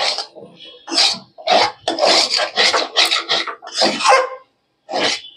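Metal spatula scraping and stirring a thick mashed potato, cauliflower and pea filling around a metal kadai: a quick series of rasping scrapes, about two a second.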